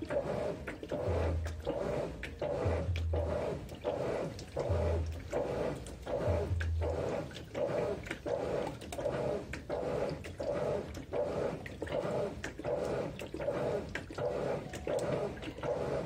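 GE 15 kg top-load washing machine agitating a load of towels in a full tub during the wash stage: rhythmic sloshing and churning of water with each agitator stroke. A low motor hum comes in short repeated spells during the first few seconds, then stops.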